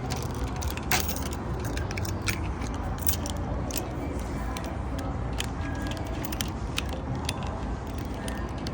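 Irregular metallic clicks and clinks of keys and tools working a store door lock, one sharper click about a second in, over a steady low rumble.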